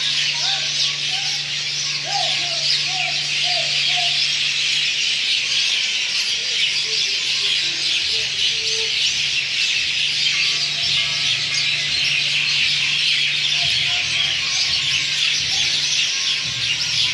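A large flock of birds chirping all at once, a dense, unbroken chatter of many small high calls. A few lower, separate calls stand out in the first few seconds and again about halfway through, over a faint low steady hum.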